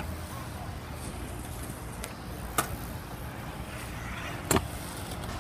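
Stunt scooter wheels rolling on concrete, a steady low rumble, with a couple of light clacks and one sharp clack about four and a half seconds in as the scooter lands off a ramp.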